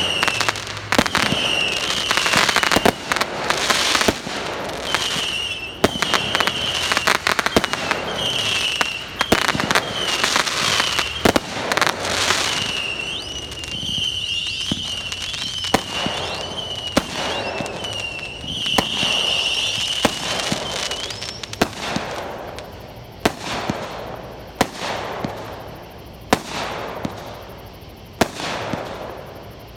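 Aerial fireworks going off: many sharp bangs and crackling bursts, coming thick and loud at first and thinning toward the end. A high wavering whistle runs through the middle stretch, with short rising whistles above it.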